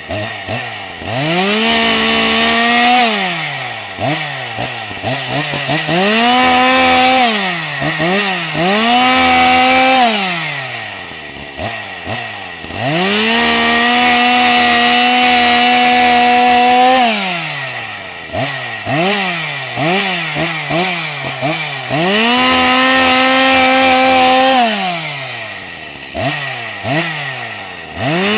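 Two-stroke chainsaw engine being revved repeatedly: the pitch climbs to full throttle and holds for two to four seconds, then drops back toward idle, with bursts of quick short throttle blips between the long revs. The longest hold is in the middle.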